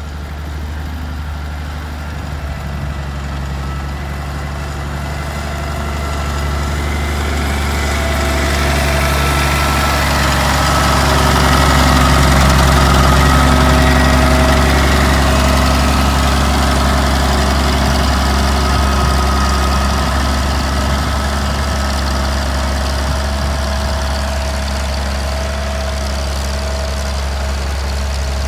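Galion 118B motor grader's diesel engine running under load while grading dirt. It grows louder as the machine passes close, about midway, then eases off a little as it works away.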